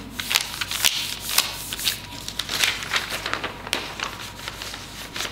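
Sheet of paper pattern being folded and creased by hand: rustling with many sharp crackles as the paper is lifted, bent and pressed flat.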